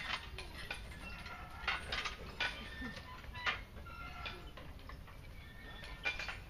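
Iron weight plates and bars clanking now and then on outdoor gym machines, each metallic knock followed by a short ringing; several clanks come close together about two seconds in and another near the end.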